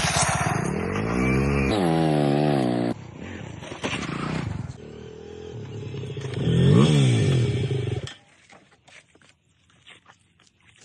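An engine revving up and back down twice, then cutting off abruptly about eight seconds in, followed by a few faint clicks.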